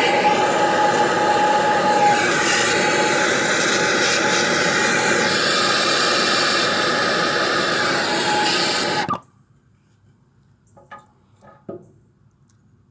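Handheld gas soldering torch flame running with a steady hiss while it heats a copper pipe joint for soldering, then shut off abruptly about nine seconds in. A couple of faint knocks follow near the end.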